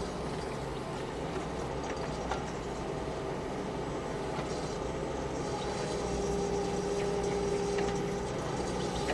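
Excavator's diesel engine running steadily with a constant drone, while the machine is being worked through its controls.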